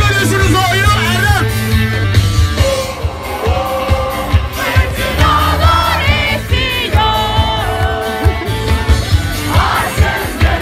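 Live band playing through outdoor stage speakers: a singer over a steady bass line and drum beat, heard from within the audience.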